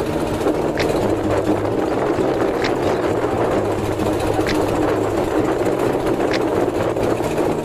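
A small engine running steadily at a constant speed, with a faint high click about every two seconds.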